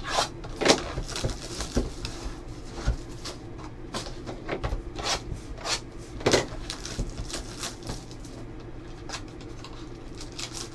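Cardboard trading-card box and packs being handled and opened by hand: a string of short taps, scrapes and rustles, the sharpest near the start and about six seconds in.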